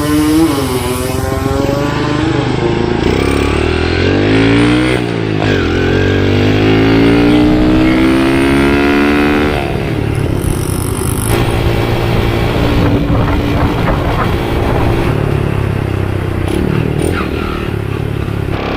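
Underbone motorcycle's small single-cylinder engine accelerating through the gears. Its pitch rises and drops with each shift, then it runs more steadily after about ten seconds.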